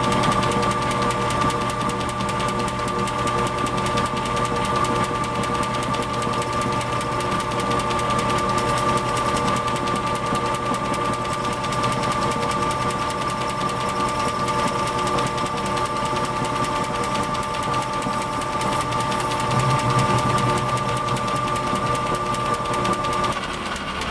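Vernon metal lathe running with a steady gear whine and hum while a carbide insert turns the chrome off a steel socket extension. The whine stops near the end as the lathe is switched off.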